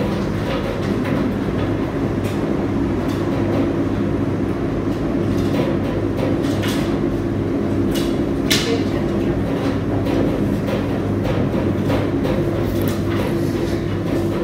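Commercial laundry machines running: an Ipso WE165 washer's drum tumbling linen in its warm wash, together with tumble dryers, make a steady motor hum and rumble. A few short clicks and knocks sound over it.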